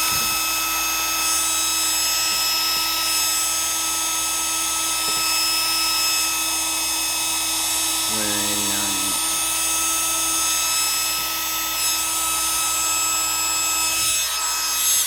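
Gillette Supermax 1500 hair dryer running at high speed on the cool setting: a steady whine from the small fan motor over the rush of air. The owner takes the motor to need oil in its bearings. It cuts off at the very end.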